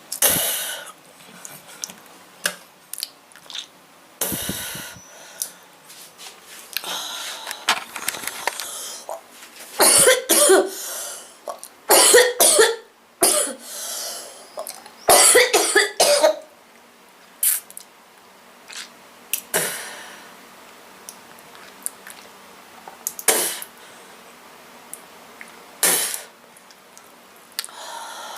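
A girl with a bad cold coughing in repeated fits, some short and single, some longer runs, with the heaviest coughing in the middle of the stretch and throat clearing between fits.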